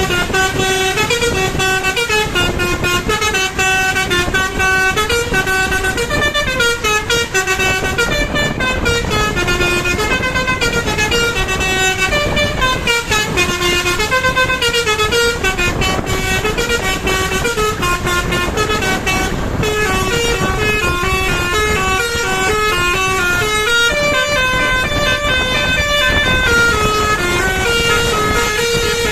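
Bus basuri telolet horn playing a tune nonstop, a string of held musical notes stepping up and down several times a second, over steady background noise.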